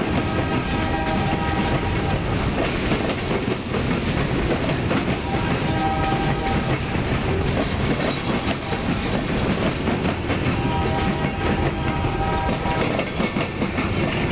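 Boxcars of a freight train rolling past at slow speed, their wheels clattering over the rail joints. A high, steady ringing tone comes and goes three times over the rumble.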